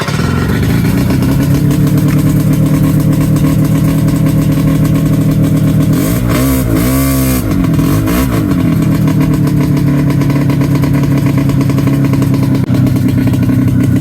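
1994 Yamaha V-Max 500 snowmobile's two-stroke twin engine running, blipped up twice around the middle and then settling back to idle. Its leaking exhaust makes it loud and raw: the exhaust leaks are pretty bad.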